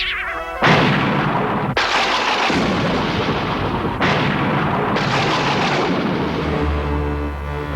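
Cartoon sound effect of four loud blasts in a row, each starting sharply and dying away over about a second. Low music with held notes comes in near the end.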